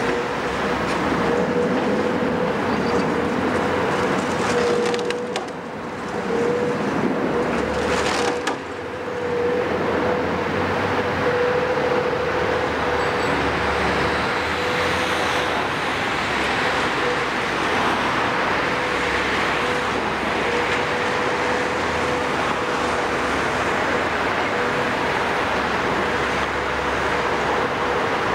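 Caterpillar 374 hydraulic excavator's diesel engine and hydraulics running steadily as it lifts and swings a demolition jaw attachment, with a constant whine through the engine noise.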